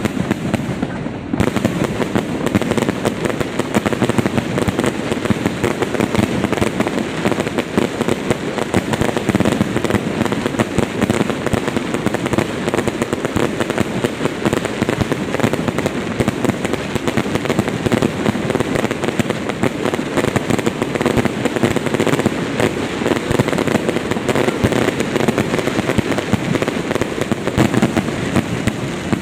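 Fireworks display going off: a dense, continuous crackle of many overlapping bangs and pops with no pauses, growing a little fuller about a second in.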